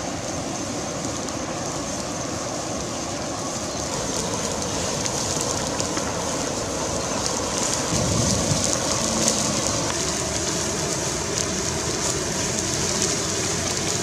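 Wood fire crackling with scattered small pops over a steady rushing noise, with a single dull thump about eight seconds in.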